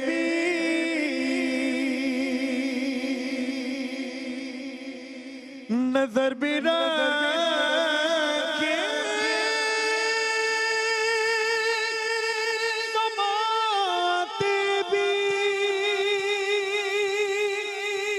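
A man singing an Urdu hamd (devotional praise song) in long, ornamented held notes. The voice trails off quieter about five seconds in, then comes back louder with a new phrase and holds one long wavering note through the second half.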